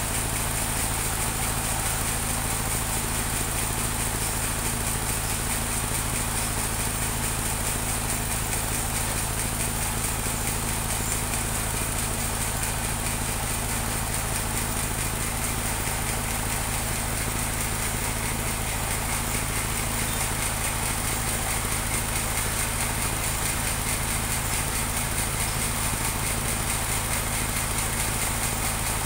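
Portable band sawmill's engine running steadily, not under load, with no cut being made.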